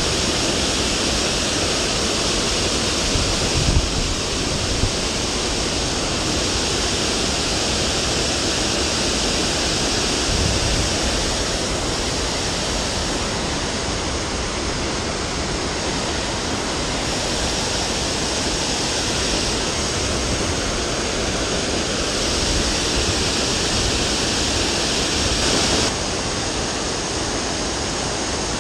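Steady rush of river water pouring over a stone weir into the pool below.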